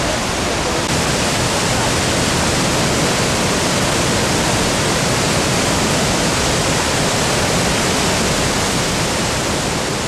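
Steady rushing of the Detian Waterfall's cascades: loud, unbroken falling water.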